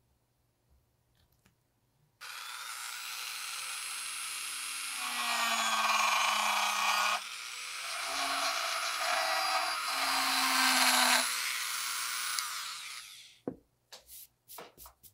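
Handheld rotary tool with a sanding drum starting abruptly about two seconds in and running with a high whine. It gets louder under load as it sands, dips briefly midway, then spins down near the end. A few light knocks follow.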